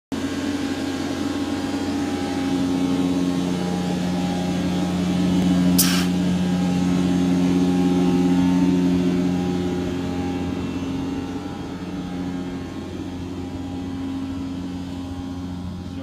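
Quiet Cube 200 industrial vacuum loader running with a steady droning hum, louder for a few seconds in the middle, with a brief sharp hiss about six seconds in.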